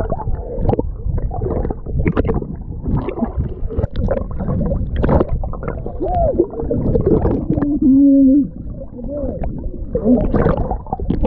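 Water sloshing and gurgling over a wet camera's microphone, heard muffled, with brief muffled voice-like sounds.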